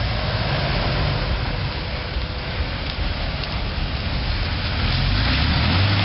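Jeep Wrangler TJ engine running at low speed as the Jeep crawls through mud, over a steady hiss. The engine's low rumble grows louder and steadier about five seconds in.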